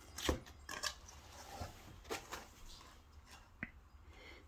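Homemade slime being squeezed and poked by hand: a few scattered quiet squishes and sticky clicks, the strongest about a third of a second in.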